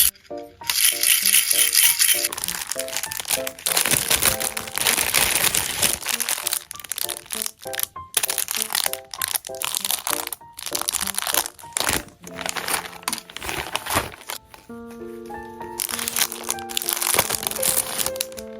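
Packaging crinkling and rustling in repeated bursts as items are unwrapped, over light background music.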